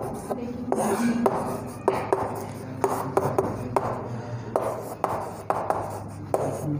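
Chalk writing on a blackboard: a run of sharp taps and short scratchy strokes as a word is chalked.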